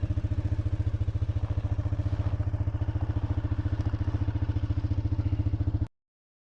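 Small gas engine of an ice auger running steadily with a fast, even firing beat, then cutting off abruptly near the end.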